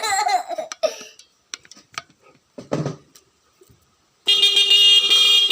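A 12 V electric bike horn, switched by an Arduino through a relay, sounds one steady blast starting about four seconds in and still going at the end. Before it there are a few faint clicks and a short cough-like noise.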